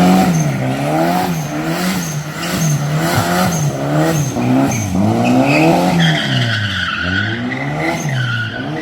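Car engine revving up and down over and over, with tires squealing through the second half.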